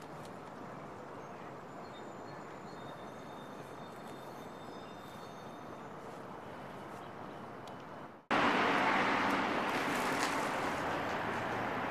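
Steady outdoor city ambience with a distant traffic hum and a few faint high chirps. About eight seconds in it cuts suddenly to a much louder, steady rushing noise of a bicycle riding along pavement, the wind and tyre rush of travel.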